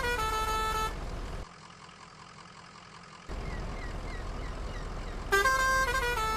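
A simple electronic tune of sustained, stepping notes breaks off about a second in. After a quieter gap and then a stretch of faint hiss with a few small chirps, the tune comes back louder about five seconds in.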